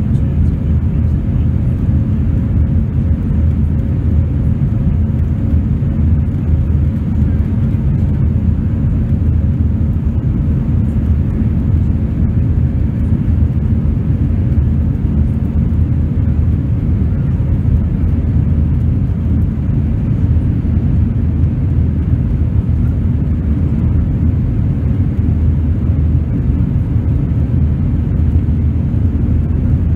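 Steady, loud cabin rumble of an Airbus A320-family jetliner climbing after takeoff: jet engines and rushing air heard through the fuselage at a window seat over the wing.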